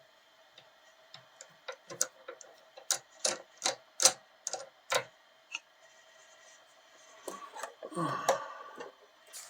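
Hard metal objects being handled at a workbench: about a dozen sharp clicks and knocks over a few seconds, loudest about four seconds in, then a couple of seconds of rubbing and shuffling.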